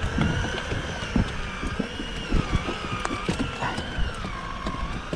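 Choppy sea water slapping irregularly against the hull of an inflatable boat, with wind buffeting and a faint steady wavering whine behind it.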